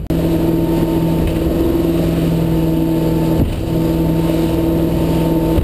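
Volvo Penta V8-270-C-A sterndrive V8 running steadily at low planing speed, about 2400–2800 rpm. Its tone dips briefly once about three and a half seconds in.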